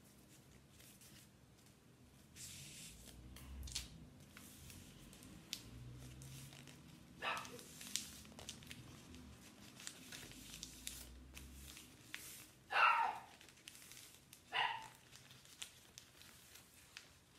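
Newspaper rustling and crinkling softly as a sheet is rolled tightly around a barbecue skewer, with scattered faint clicks. Three brief, louder sounds stand out, the loudest about three-quarters of the way through.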